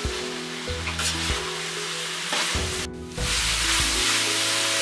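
Sliced snake gourd sizzling in hot oil as a metal spatula stirs and scrapes it around the pan, over background music. There is a brief break about three seconds in.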